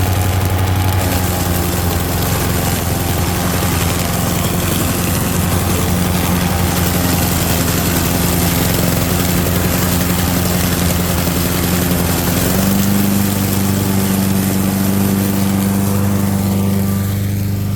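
Cub Cadet gas walk-behind lawn mower engine running steadily, just started on choke in the cold, its pitch stepping up slightly about twelve and a half seconds in.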